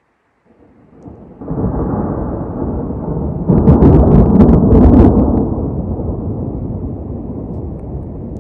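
Thunder following a nearby lightning flash: a low rumble that swells about a second in, peaks loudest with a few sharp cracks around the middle, then rolls away slowly.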